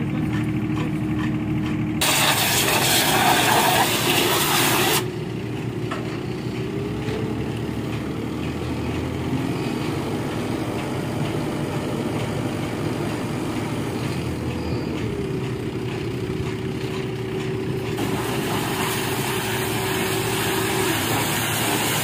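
Pressure washer running with a steady motor hum, its high-pressure water jet hissing loudly against the forklift's metal in two stretches: about two to five seconds in, and again from about eighteen seconds on.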